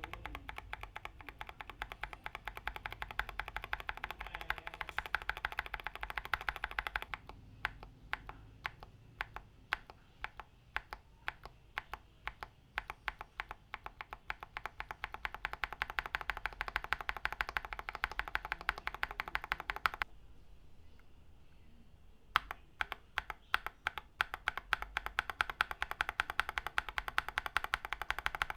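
Fast typing on a KBD75 v3.1 top-mount mechanical keyboard with Tecsee Coffee switches on an aluminium plate, a rapid stream of keystroke clicks. It thins out for a few seconds, then stops briefly about twenty seconds in before resuming.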